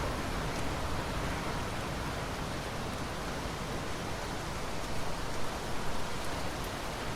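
Steady rain falling, an even rushing hiss with a few slightly louder swells about five to six seconds in.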